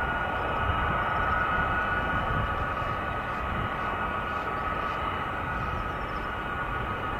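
Jet engines of a Boeing C-17 Globemaster III, four Pratt & Whitney F117 turbofans, running at low power on the ground: a steady whine over a rushing noise.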